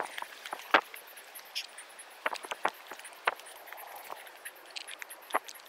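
Footsteps of a hiker climbing a steep mountain trail: irregular crunches and scuffs of shoes on soil and stone, a few sharp clicks a second.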